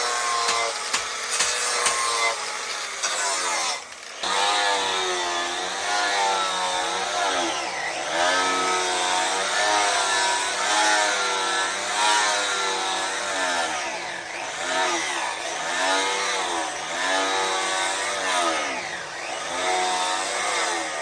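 Electric grinder running against the steel of a knife blade, its motor pitch repeatedly sagging and recovering as the blade is pressed on and eased off. A brief drop in level about four seconds in, with clicking before it.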